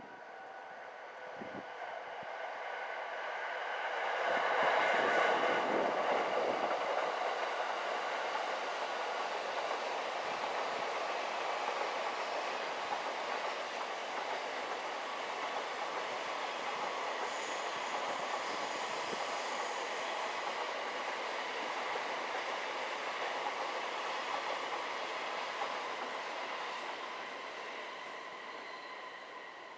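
A train passing on the rail lines. The noise builds over the first few seconds, holds steady for about twenty seconds as the train runs by, then fades away near the end.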